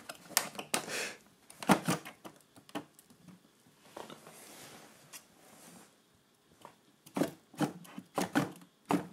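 Wooden humidor drawer knocking and scraping against the cabinet's shelf runners as it is worked into its slot at an angle. Scattered light knocks, a soft scrape around the middle, and a quick run of knocks near the end.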